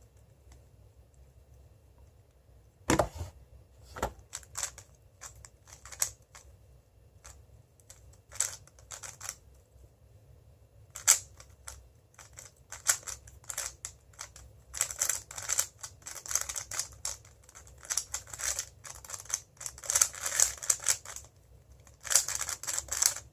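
Moyu WeiLong GTS2M 3x3 speedcube being turned fast during a timed solve: sharp plastic clicks of the layers turning, a few at a time early on and then in rapid flurries through the second half.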